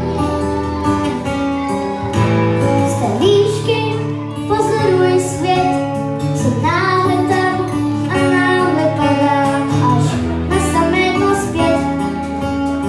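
A child singing into a microphone over a live rock band of drum kit, electric guitar, bass guitar and acoustic guitar, with a steady beat.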